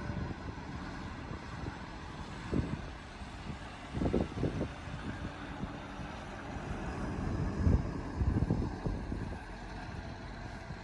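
Heavy diesel earthmoving machinery running steadily, with a few short louder rumbling knocks about two and a half, four and eight seconds in.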